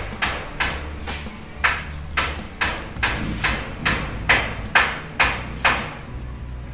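A steady run of sharp taps or knocks, about two to two and a half a second, that stops near the end, over a low background hum.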